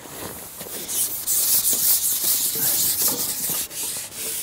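A carbon fishing pole sliding and rubbing as it is shipped out, a continuous rough scraping hiss close to the microphone.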